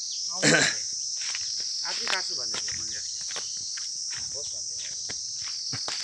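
A chorus of insects keeping up a steady, high-pitched buzz, with faint voices in the background.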